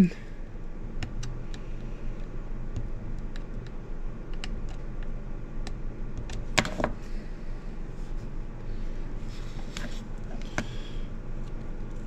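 Small clicks and taps of a nut and small plastic parts being handled and pressed into a joystick housing, with a louder knock about halfway and two more near the end, over a steady low hum.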